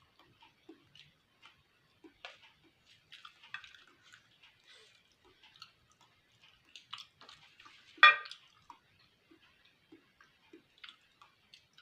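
Close-up eating sounds: chewing beef fat, with scattered small wet mouth clicks and smacks and one sharp, much louder sound about eight seconds in.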